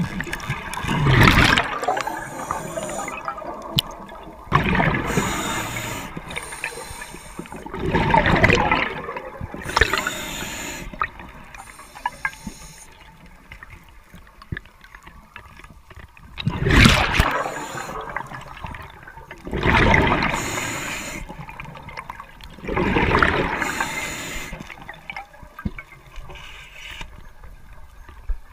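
Scuba diver breathing underwater through a regulator: loud bubbling rushes of exhaled air every few seconds, with quieter gaps between breaths.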